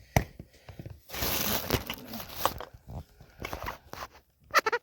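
Plastic crinkling and clicking as the lid of a cosmetics bottle is worked off by hand, with a noisy rustle about a second in and scattered sharp clicks.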